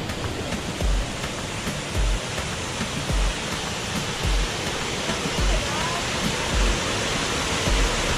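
Rushing water of a waterfall, a steady hiss, under background music with a low beat about once a second.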